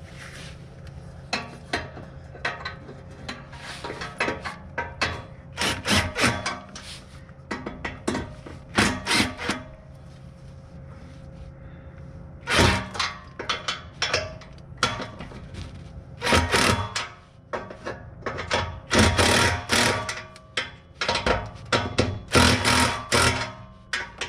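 Hand tools at work on a car exhaust: repeated bursts of sharp metal clicks and knocks, with pauses between them.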